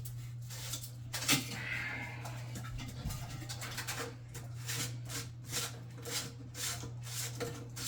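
Irregular light clicks, clinks and scrapes of toilet parts and tools being handled during a toilet rebuild, with one sharper knock about a second in. A steady low hum runs underneath.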